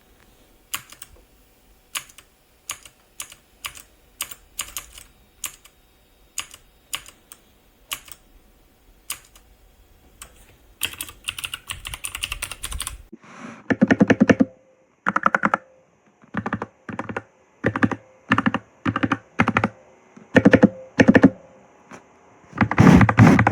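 Dierya DK61se 60% mechanical keyboard with red linear switches being typed on. At first the key presses come singly, one or two a second. From about halfway they come in louder, quicker bursts, and a dense fast run of keystrokes starts near the end.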